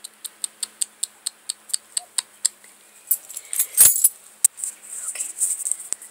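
A quick run of light, evenly spaced ticks, about five or six a second, for the first few seconds. Then loud scraping and rustling as a puppy brushes and presses against the phone's microphone, with one sharp click in the middle.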